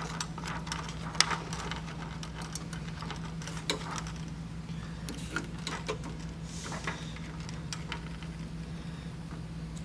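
Scattered small clicks and taps of pliers and a bare ground wire being bent and handled among the wiring of an appliance, over a steady low hum.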